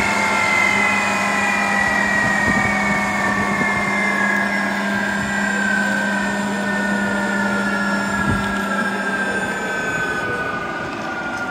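Starfighter's J79 turbojet winding down, its whine of several tones sliding slowly and evenly lower in pitch as the sound eases off. A steady low hum underneath stops near the end.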